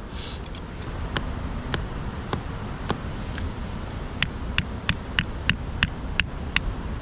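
Sharp clicking taps of a knife working a small wooden trigger stick for a deadfall trap: five evenly spaced clicks, then after a short pause eight quicker ones at about three a second, over a low rumble of wind.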